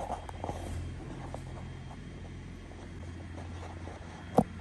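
Steady low background hum with a few light clicks in the first second and one sharp click near the end.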